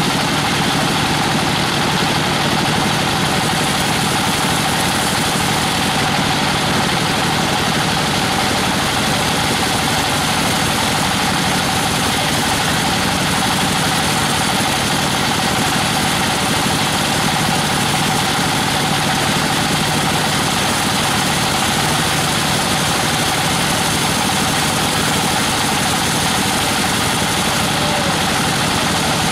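Vertical band sawmill running steadily, its blade sawing lengthwise through a log of weru (Albizia procera) wood. The drone is loud and unchanging, with a constant hum.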